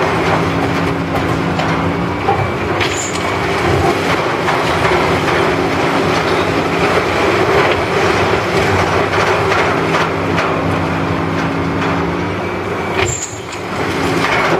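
Heavy demolition excavators at work: diesel engines running with a steady hum under continuous crunching, scraping and clattering of concrete and steel being torn from a building. The noise dips briefly near the end.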